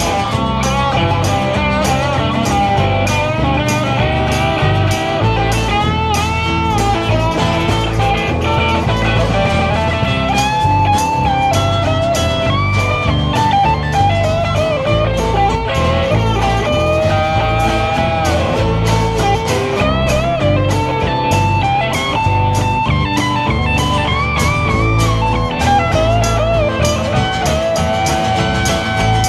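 A live guitar band playing an instrumental passage: a lead guitar line with bent notes over strummed guitar and a steady beat.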